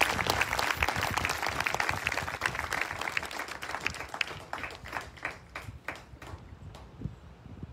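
Audience applauding, dense at first, then thinning to a few scattered claps that die out near the end.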